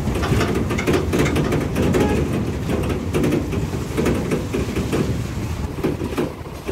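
Vehicle cabin on a rough dirt track: a steady low engine and road rumble with frequent knocks and rattles as the body jolts over ruts.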